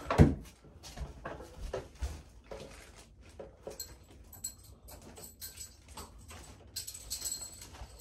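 Steel bo-shuriken striking a board target with a sharp thud about a quarter second in, followed by light knocks and metallic clinks as the spikes are pulled from the board and carried back in the hand.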